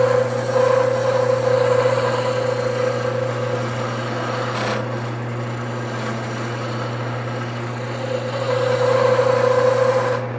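Wood lathe running with a steady motor hum while a turning tool cuts the spinning wood, a scraping, rasping sound that is louder at the start and again near the end, then stops abruptly as the tool comes off the wood.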